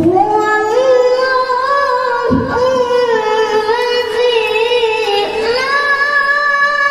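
A young boy qari's high, ringing voice reciting the Quran in melodic tilawah style into a microphone. He holds long, ornamented notes that step up in pitch, rising higher again about two-thirds of the way through.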